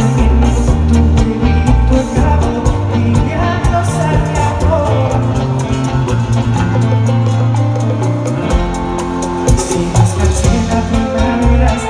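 Live bachata band playing, with electric guitar, bass and drums under vocals; the bass drops out briefly about seven seconds in, then comes back.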